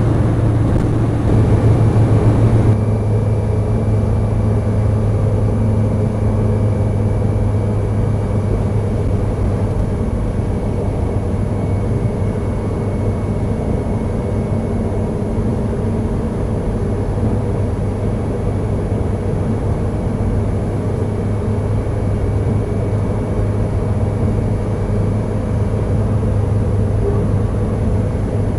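Car driving at motorway speed, heard from inside the cabin: a steady low hum of engine and tyre road noise. A louder rushing stretch comes in the first few seconds, after which the noise stays even.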